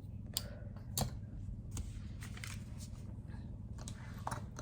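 Scattered small clicks, taps and rustles of hands handling styling tools and hair on a wig, over a steady low hum; the sharpest knock comes about a second in.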